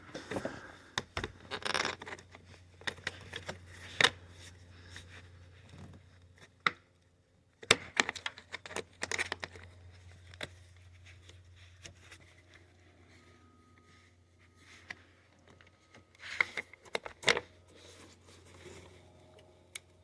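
Plastic trim clip being pried out of a car's interior panel with a fastener remover tool: scattered scraping, clicks and knocks as the tool's notched tip is worked under the clip, loudest about four and eight seconds in.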